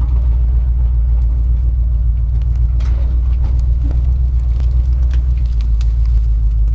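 Engine of a six-wheel-drive off-road truck running steadily at low speed, a deep even drone, with scattered sharp cracks and ticks from brush and twigs breaking against the truck and its tyres.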